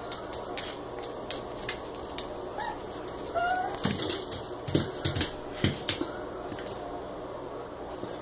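A small white puppy and a Chihuahua mix playing on a tile floor: toenails clicking and scrabbling throughout, a couple of brief high whimpers about three seconds in, and several soft thumps between about four and six seconds.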